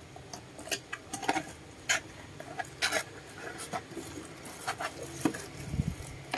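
Cardboard box being opened and handled by hand: irregular taps, scrapes and rustles as a plastic-wrapped speaker is slid out.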